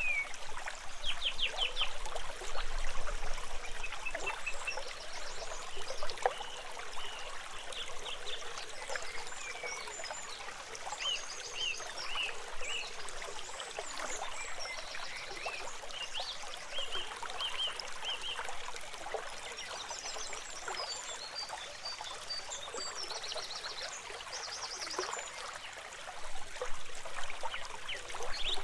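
Stream water trickling and babbling steadily, with many short, high chirps and quick trills from small calling animals scattered over it.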